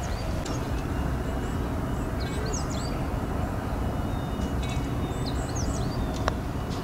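Steady low outdoor rumble with a few small birds chirping in short bursts; about six seconds in, a single sharp click of a putter striking a golf ball.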